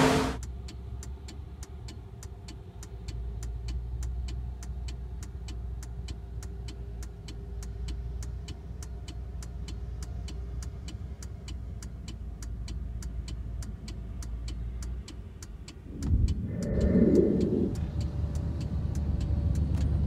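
A vehicle's engine running with a steady low rumble, heard from inside the cab, over a light regular ticking about three times a second. About sixteen seconds in, the rumble swells louder for a couple of seconds.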